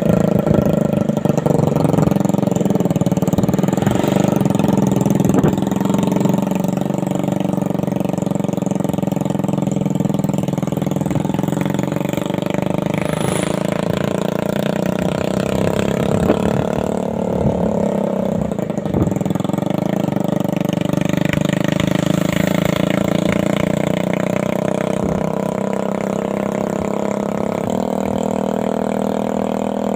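Suzuki Satria FU 150cc motorcycle engine, built into a homemade mini pickup, running as the vehicle drives along at a steady cruise, its pitch rising and falling slightly.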